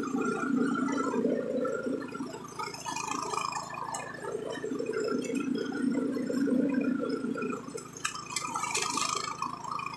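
Senci 7.5 hp single-cylinder petrol engine on a belt-driven push mower, running as the mower is pushed through grass. It has a rough, burbling sound whose loudness swells and dips.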